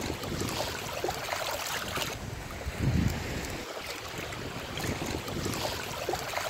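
Small waves lapping and splashing at a lake shore, with wind buffeting the microphone and one stronger gust about three seconds in.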